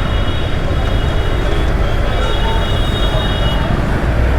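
Road traffic idling at a junction: a steady low engine rumble with a thin, high-pitched squeal held over it that stops briefly and cuts out near the end.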